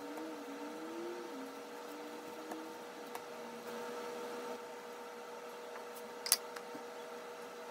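Quiet kitchen room tone with a steady hum, and one sharp tap about six seconds in as a bench scraper knocks against the dough mat.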